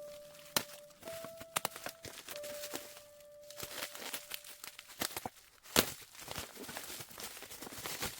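Packaging being opened by hand: crinkling and tearing of plastic and cardboard, with many sharp handling clicks and a louder snap about six seconds in.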